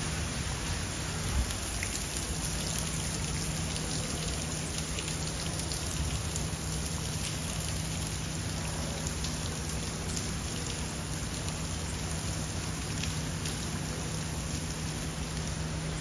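Steady rain falling, with many single drops ticking sharply through an even hiss, over a low steady hum.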